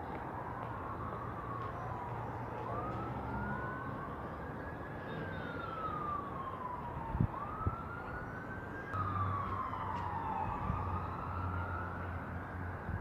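Wailing emergency-vehicle siren, its pitch sweeping slowly up and down, with a second siren overlapping it, over a steady low rumble. Two sharp knocks come about half a second apart a little past the middle.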